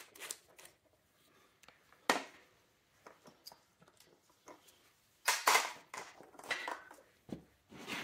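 Sharp metal clicks and knocks as the thermostat housing is worked loose and pulled off an engine block by hand. There is one sharp click about two seconds in and a louder short clatter a little after five seconds.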